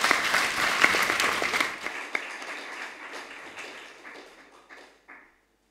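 Audience applauding, loudest at first, then thinning out and dying away about five seconds in.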